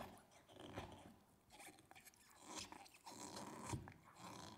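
Belgian Malinois gnawing on a black rubber Kong chew toy: faint, irregular chewing of teeth on rubber.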